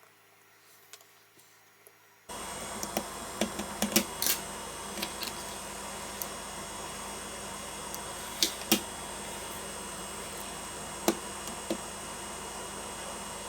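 A steady electrical hum and hiss switches on abruptly about two seconds in. Over it come scattered light clicks and taps, typical of handling small parts on a repair bench.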